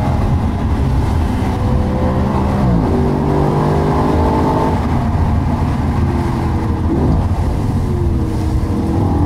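Audi RS5 Cabriolet's V8 engine pulling uphill, heard from inside the cabin. The pitch drops sharply about three seconds in at a gear change, holds, then eases and climbs again near the end as the car accelerates.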